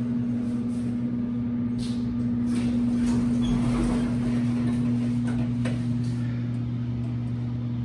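Modernized Dover traction elevator's car doors sliding open, with a few light clicks and knocks, over a steady low hum.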